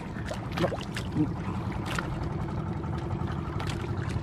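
A fishing bangka at sea: a steady low hum with a faint even tone, under water and wind noise, with a few light knocks.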